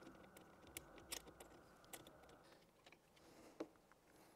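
Faint, irregular clicks and light metal clinks of small hardware being handled: the CPU air cooler's mounting brackets and screws around a motherboard's socket. The sharpest click comes near the end.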